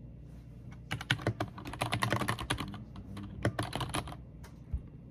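Typing on a computer keyboard: quick runs of key clicks in three bursts, pausing between them, with a last single keystroke near the end.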